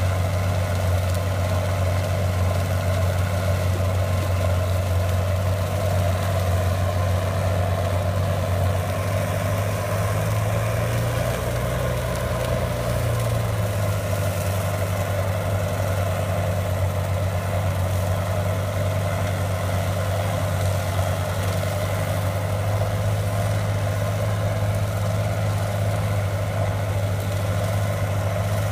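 Hydratrek amphibious vehicle's engine running steadily while it cuts brush and tall grass, its pitch rising briefly about eleven seconds in.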